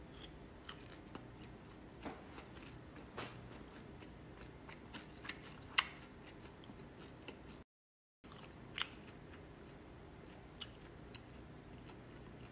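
A person chewing a mouthful of food, with scattered small clicks and smacks over a faint steady room hum. The sound cuts out completely for about half a second a little past halfway.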